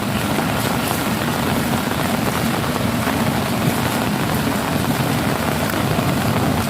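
Heavy rain pouring steadily onto puddles and waterlogged ground, a dense, even hiss with a low rumble underneath.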